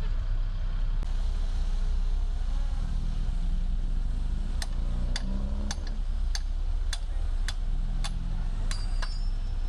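Diesel engine of heavy earthmoving machinery running steadily. About halfway through, a series of sharp clicks starts, roughly two a second, and stops near the end.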